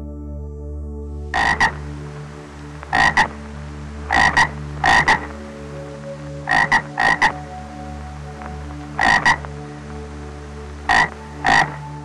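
An animal giving short calls in pairs, repeated about every one and a half to two seconds, starting about a second and a half in, over a steady musical drone.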